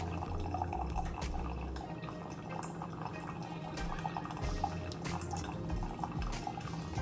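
Farberware single-serve pod coffee maker brewing, its stream of coffee trickling and dripping into a ceramic mug. A low hum cuts in and out underneath.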